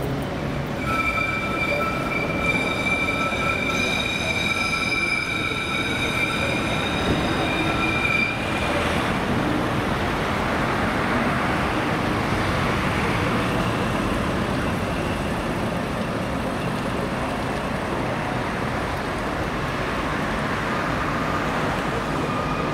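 Tram wheels squealing on the rails, one steady high-pitched squeal that holds for about seven seconds and then stops, followed by the steady noise of the tram rolling and city traffic.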